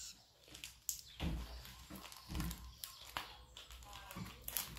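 Scissors cutting open a plastic mailer bag: a handful of separate sharp snips with crinkling of the plastic, and a few dull knocks as the package is handled on the table.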